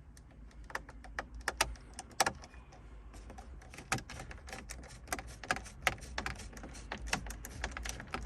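Irregular small clicks and taps of a screwdriver with a T20 Torx bit working screws out of the plastic dashboard trim.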